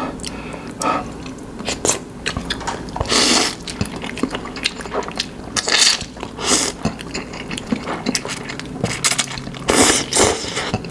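A person slurping up sauce-coated instant noodles from chopsticks: about four loud wet slurps, with wet chewing and lip clicks in between.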